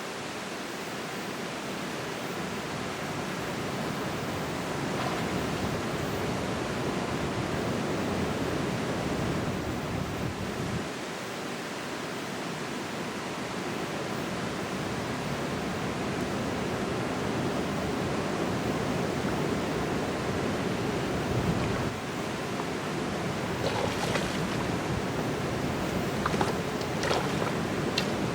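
Steady rushing of river water below a dam, slowly growing louder, with a few short clicks and rustles in the last few seconds.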